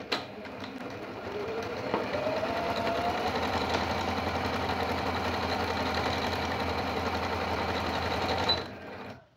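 Apricot Computer 9700 computerized sewing machine stitching a decorative embroidery stitch: its motor whine rises over the first few seconds to a steady sewing pace, then stops shortly before the end.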